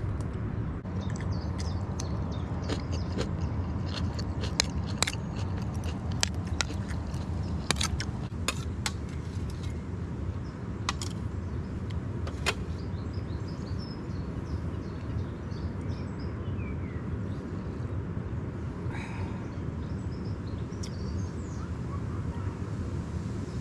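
Eating utensil clicking and clinking against a plate: many sharp, irregular clicks that stop about halfway through, over a steady low rumble.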